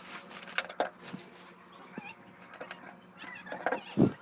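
Scattered light clicks and knocks of small objects being handled, over a faint steady hum.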